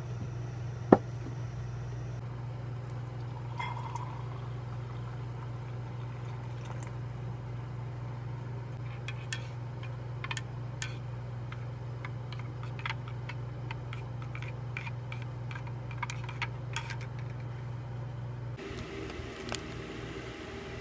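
Clicks and clinks of a glass mug and utensils while a drink is made, one loud click about a second in and clusters of light clinks later, over a steady low hum. Near the end the hum gives way to a different, higher hum.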